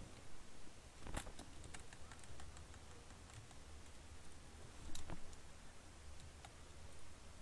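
Scattered clicks of a computer keyboard and mouse: a quick run of taps about a second in, a louder click near five seconds, and one more later, over a faint low hum.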